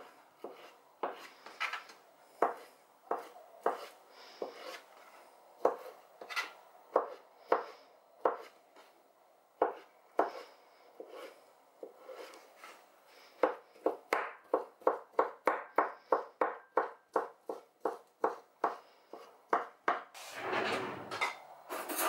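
Kitchen knife cutting boiled carrots on a plastic cutting board. Separate knocks of the blade come every half second to a second at first. In the second half they turn into quicker, even chopping, about three strokes a second, and a louder rustling scrape follows near the end.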